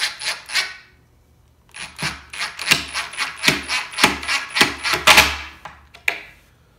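Cordless impact driver on low speed driving a 1 1/4-inch pocket-hole screw into 3/4-inch plywood, hammering in rapid clicks over a thin motor whine. A short run ends under a second in, and a longer run of about four seconds stops as the screw seats just enough to hold.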